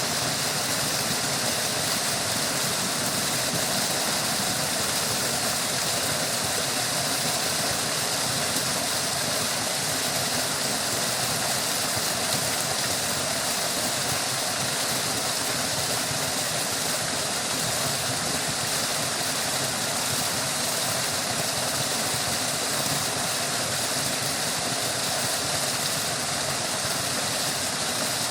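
Running water babbling steadily, a constant unbroken rush.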